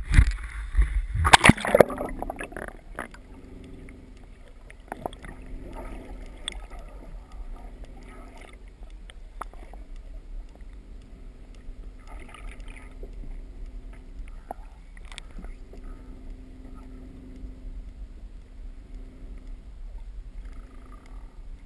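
Splashing as the camera housing goes into the sea in the first two seconds, then the muffled sound of water on the underwater camera: a steady low hum with scattered ticks and knocks.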